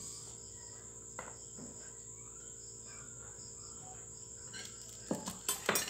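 Crickets chirping steadily in the background. A faint knock comes about a second in, and a quick cluster of light knocks and clatter near the end.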